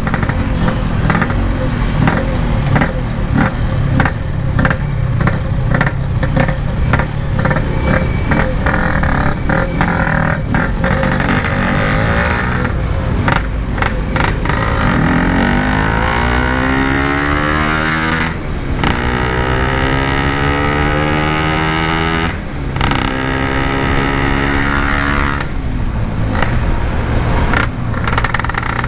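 Yamaha RX-King's single-cylinder two-stroke engine and its standard-style Packing Power exhaust heard while riding, with wind buffeting the microphone. About halfway through it pulls hard, the engine pitch rising, with brief breaks at gear changes every three to four seconds.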